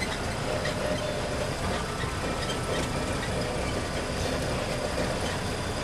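Engine of an island tour tram running steadily as it drives along, heard from on board.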